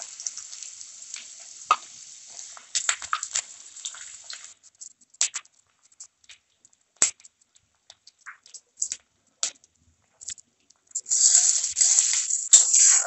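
Chopped onion frying in hot mustard oil in a kadai: the sizzle dies down over the first few seconds into scattered pops and spits, then grows loud again about eleven seconds in as a spatula stirs the onion through the oil.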